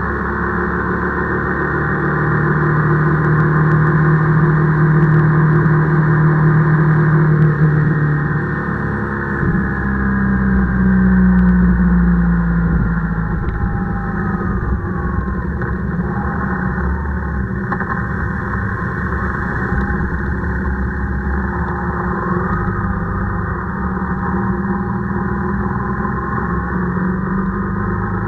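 Engine of a vehicle driving along a road, its note holding steady, then falling as it slows about a third of the way in and rising and falling again as it picks up speed, over a heavy low rumble of wind and road noise.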